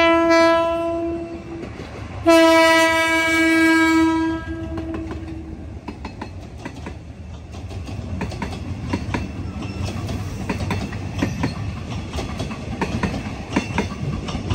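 Hitachi diesel locomotive's horn sounding two blasts on one note, a short one and then a longer one about two seconds later. After that the passing train's wheels click over the rail joints above a steady low rumble.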